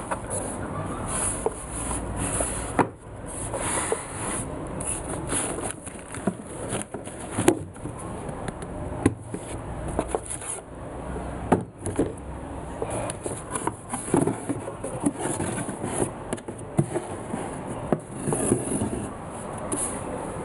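A cardboard sneaker box and its tissue paper being handled: irregular rustling and crinkling with scattered sharp clicks and knocks as the lid comes off and the shoe is uncovered.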